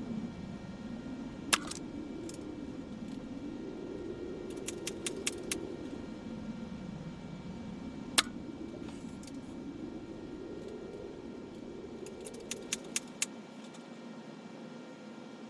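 Rifle scope's windage and elevation turrets being turned: quick runs of small metallic clicks, with a couple of sharper single clicks, over a steady low drone.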